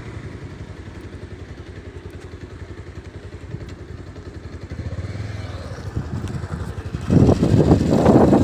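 Motorcycle running at road speed, a steady low rumble of engine and road noise that slowly grows louder. About seven seconds in, loud gusty wind buffeting on the microphone takes over.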